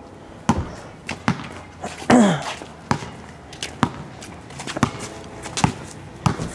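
Basketball dribbled on a concrete driveway, one bounce roughly every 0.8 seconds. A brief vocal sound, falling in pitch, comes about two seconds in.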